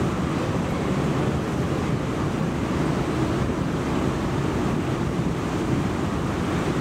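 O&K moving walkway running, heard while riding on it: a steady low rumble from the pallets and drive that does not change.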